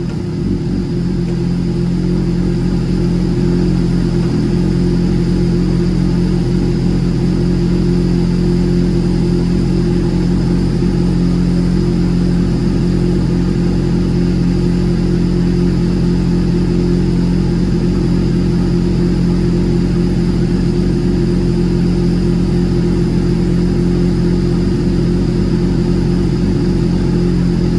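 Kawasaki ZX-6R race bike's inline-four engine running at a steady speed, loud and even throughout after building up over the first few seconds.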